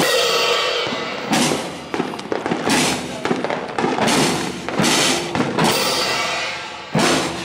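Scout drum corps' field drums beating a marching rhythm, with heavy accented strokes about once a second.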